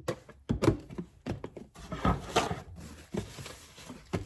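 A spoon scraping and knocking against a yogurt container and cup as yogurt is spooned out: a string of irregular knocks and short scrapes, the loudest about half a second and two seconds in.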